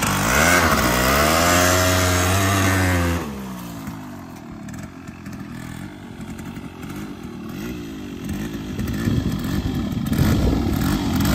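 Yamaha RX100's two-stroke single-cylinder engine revved hard and held high for about three seconds, then dropping back to a quieter idle with small blips of the throttle, and revving up again near the end.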